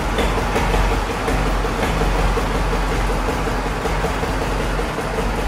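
Antique tractor engine running steadily, its firing strokes making an even, rapid beat of about ten a second over a deep rumble.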